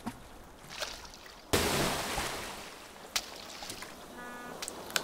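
Sound-effect ocean wave crashing about a second and a half in and washing away over a second or so. Scattered small knocks come before and after it, and a short pitched sound follows near the end.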